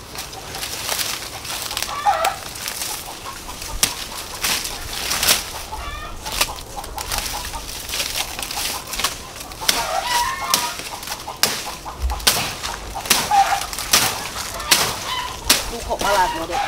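Dry leaves and plant stalks crackling and snapping as they are pulled and broken off by hand, in many sharp irregular crackles. A few short hen clucks come about 2 s in, around 10 s and near 13 s.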